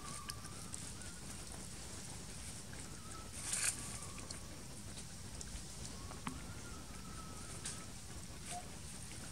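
Quiet outdoor ambience: a steady low hiss with a few faint, thin whistled tones and scattered small clicks, and a short rustle about three and a half seconds in.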